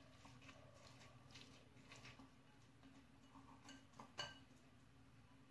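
Faint scraping and light tapping of a plastic spatula against a ceramic bowl as chopped vegetable filling is mixed, with one sharper, briefly ringing clink about four seconds in, over a steady low hum.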